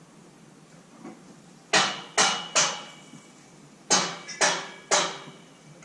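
Hammer striking metal: six ringing blows in two sets of three, about half a second apart, as when scaffolding fittings are knocked into place.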